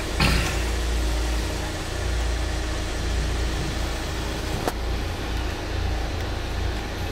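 Fiat Barchetta roadster's engine running, with low rumbling road and wind noise heard from the open cockpit and a single sharp click about halfway through.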